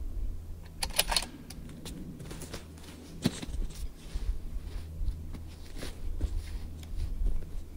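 Handling noise as a shooter settles prone behind a rifle: rustling clothing and gear, with a quick run of light clicks about a second in and one sharp click a little past three seconds, over a low steady rumble.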